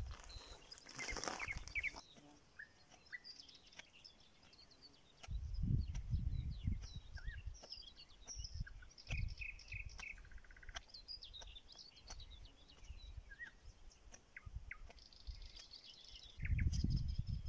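Wild songbirds chirping and calling in the background, with soft rustling of duck feathers being plucked by hand. Two spells of low rumbling come about five seconds in and near the end.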